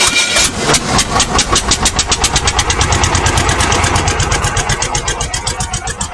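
Freshly rebuilt diesel engine starting and running. Its firing pulses quicken at first, then settle into an even, steady beat.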